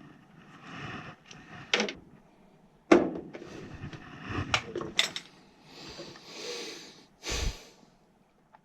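Hands handling tools and furnace parts: a string of clicks and knocks, the loudest a sharp knock about three seconds in, between spells of rustling and scraping.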